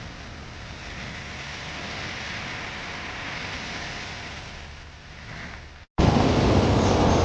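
Steady wash of beach noise. About six seconds in, an abrupt cut brings in much louder surf and wind buffeting the microphone.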